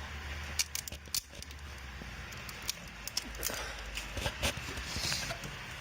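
Irregular light clicks and crackles of hands working on an engine wiring harness, over a low steady hum.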